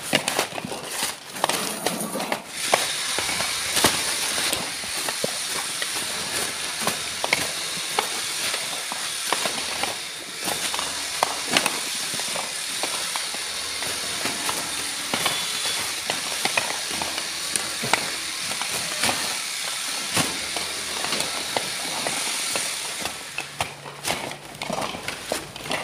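Dehusked coconuts knocking and clattering as they are tossed and sorted by hand, many short sharp knocks over a steady hiss.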